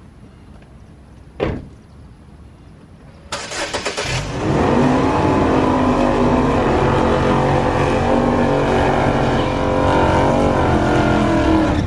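A single thump, then about three seconds in a brief rough burst of starter cranking as a GMC SUV's engine catches and settles into a steady idle.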